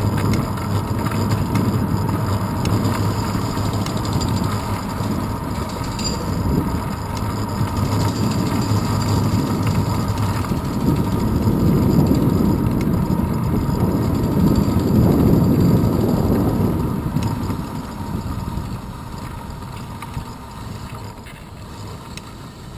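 Wind buffeting and road rumble picked up by a handlebar-mounted GoPro action camera while cycling on pavement. It swells around the middle and fades near the end as the bike slows.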